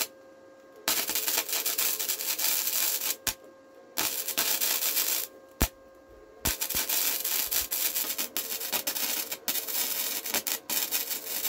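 Welding on a steel exhaust pipe: the arc crackles and sputters in four runs of a second or more, stopping briefly between beads.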